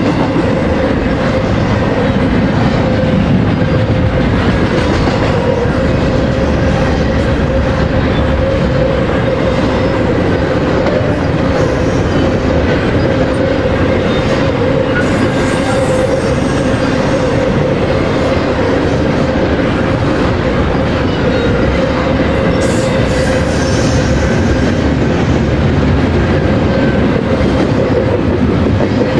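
A train's cars rolling past at close range: a steady, loud rumble of steel wheels on the rails, with a steady ringing tone over it.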